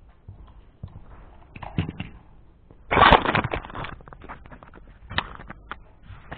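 Close handling noise on a small camera: scattered clicks and knocks, then about three seconds in a loud burst of rubbing and scraping as a finger covers the camera, followed by a few more sharp clicks.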